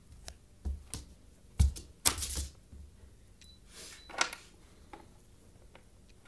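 Scattered taps, thumps and short scratchy scuffs of a kitten's paws and claws hitting the wall and floor as it pounces after a laser dot. The loudest are a sharp thump and a scrabble a little under two seconds in, with another scuff about four seconds in.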